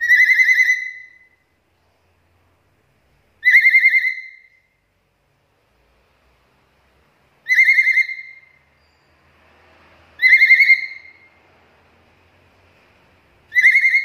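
A black-capped lory gives five loud whistled calls, roughly three to four seconds apart. Each call lasts about a second and has a fast warbling trill running through it.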